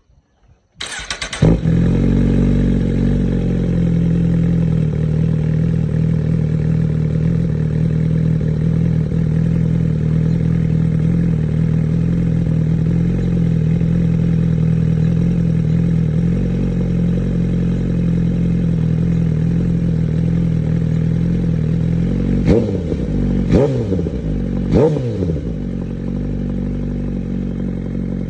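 A 2024 Suzuki GSX-R1000R's inline-four is started through an Arrow Pro Race slip-on muffler: a brief crank, then it catches and idles steadily. Near the end it is given three quick throttle blips, each rising and falling, before settling back to idle.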